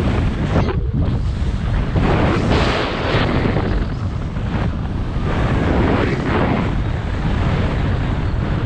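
Strong wind buffeting the camera microphone while skiing downhill, with the hiss of skis sliding over packed snow rising and falling in surges.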